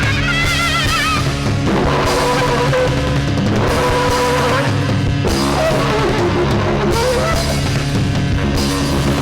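Band playing trance punk with drums, bass and guitar, in an instrumental stretch with no singing. A wavering high lead line sounds near the start, then held notes.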